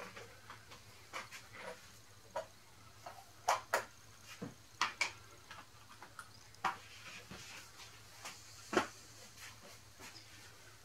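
Scattered light knocks and clicks, a handful of sharper ones through the middle, over a faint steady hum: someone moving about and handling wooden pieces and tools in a workshop.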